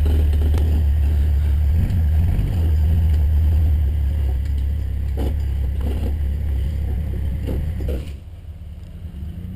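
Four-wheeler engine idling close by: a steady low rumble, with a few light knocks in the second half. The rumble drops away sharply about eight seconds in.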